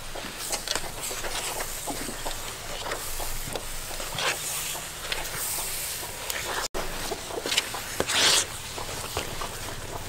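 Metal spoon stirring and scraping thick palm-fruit batter in an aluminium bowl: irregular soft scrapes and clicks, with a louder scrape about eight seconds in.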